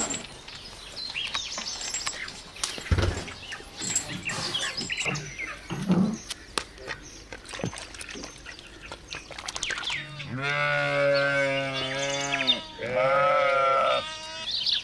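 Birds chirping in short, high cheeps. About ten seconds in, an animal gives two long, steady calls, the first about two and a half seconds long and the second about one second.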